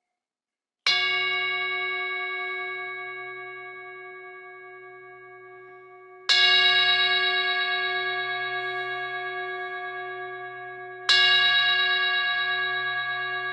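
A struck bell rung three times, about five seconds apart. Each strike rings on in several clear, steady tones and slowly dies away. It marks the start of a moment of silence.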